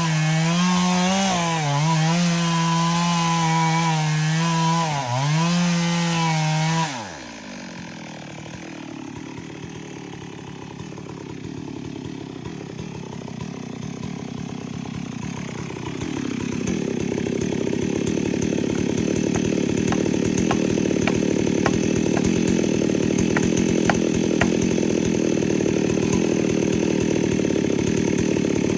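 Stihl MS 382 two-stroke chainsaw running at high revs in a cut, its pitch sagging briefly twice under load. About seven seconds in, the sound drops abruptly. A quieter, rougher saw sound follows and grows louder about halfway through, with scattered sharp cracks of wood.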